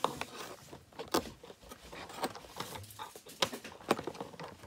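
Irregular clicks, taps and rustles of toy packaging being handled and opened.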